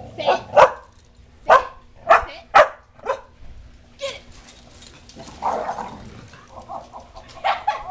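Dogs barking in rough-and-tumble play: a quick run of loud, sharp barks in the first three seconds, then a few softer barks later on.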